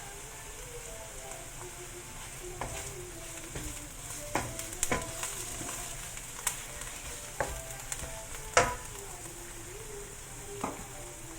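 Minced beef frying with crisp fried onion and garlic in hot oil, a steady sizzle, while a spatula stirs it and knocks against the pan about seven times, loudest a little past halfway.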